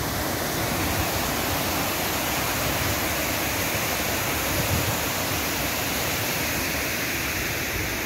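Steady rushing of water pouring over a concrete weir spillway and tumbling down the rocky channel below.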